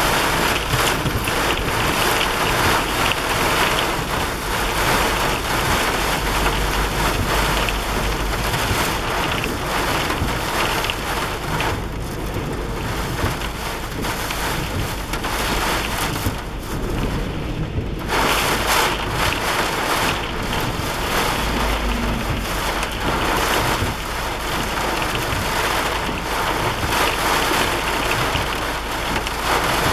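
Storm wind gusting over the microphone, with rain falling. The noise thins out for several seconds about halfway through, then comes back as strong as before.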